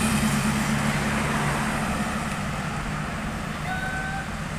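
Tour bus engine running with a steady low hum that fades away over the first few seconds, against a background of traffic noise. Two faint short tones come near the end.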